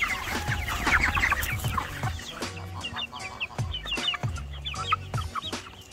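A flock of young Red Ranger meat chickens clucking and peeping around their feeder, densest in the first two seconds and thinning to scattered high chirps after.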